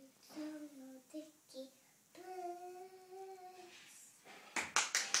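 A young girl singing: a few short notes, then one long held note, followed near the end by several quick hand claps.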